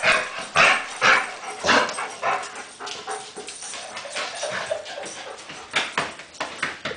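Dog barking and yipping in short, sharp bursts, about two a second for the first couple of seconds, then fewer and softer ones, with a short cluster again near the end.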